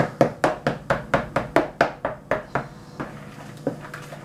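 A utensil stirring pancake batter in a plastic mixing bowl, knocking against the bowl's side about four times a second; the knocks grow fainter and slower near the end.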